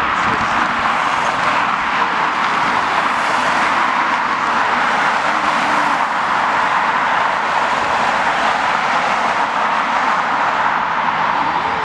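Jet airliner engines heard from outside: a loud, steady rushing noise with no breaks.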